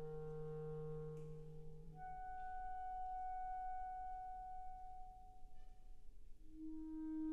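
Solo clarinet and wind symphony playing a slow, quiet passage of long held notes, one or two at a time. A louder, lower held note comes in near the end.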